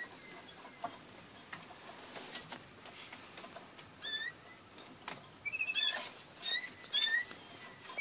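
Caged canaries singing short chirped notes over scattered small clicks. The song gets louder and busier from about halfway, with a quick trill in the middle.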